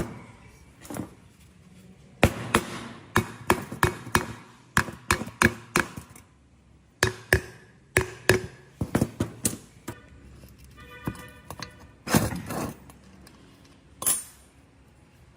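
Hand tools knocking and clinking on metal mower parts in irregular bursts of sharp taps, with a short metallic ring about two thirds of the way through.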